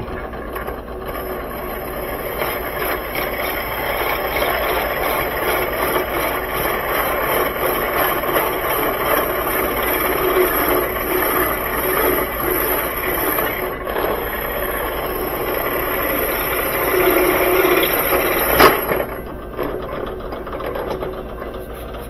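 Drill press running with a tapered bit cutting into the inside of a hand-held 1-inch brass tube: steady motor whir with metal-on-metal rattle and grinding from the bit. About three-quarters of the way through there is a sharp click, and the noise then drops.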